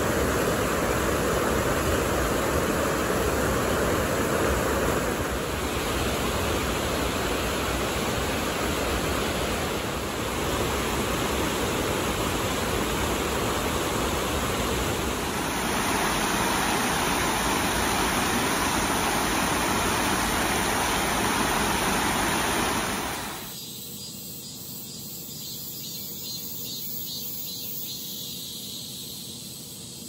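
Water rushing steadily over a low concrete weir, a dense even rush that changes character slightly just past halfway. About three-quarters of the way in it gives way to a much quieter outdoor background with faint high insect chirring.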